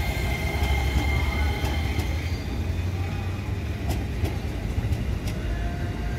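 KRL Commuter Line electric multiple-unit train passing close by, a steady rumble of wheels on rails. A high tone fades out over the first couple of seconds, and there are several sharp clicks.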